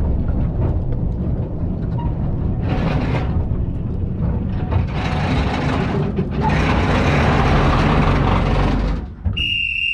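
A heavy vehicle running with a loud low rumble and several long stretches of hissing noise. Near the end, a short high-pitched tone sounds and then cuts off.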